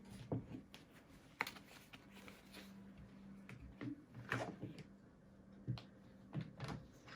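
Scattered clicks and knocks of a box fan's plastic cover being handled and fitted back on over the newly swapped blade, over a faint steady hum.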